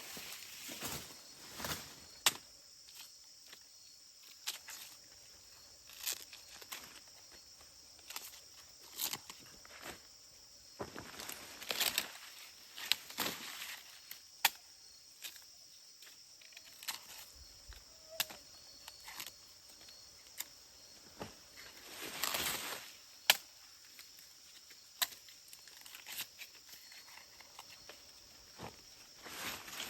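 Steady high drone of insects, broken by irregular sharp knocks, clicks and rustling swishes from work in vegetation.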